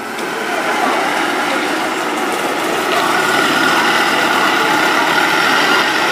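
Red Honda sedan's engine running steadily as the car rolls slowly up and draws alongside.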